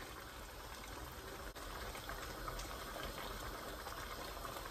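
A pot of meat stew simmering on a gas burner gives a steady, soft bubbling crackle while red palm oil is poured in.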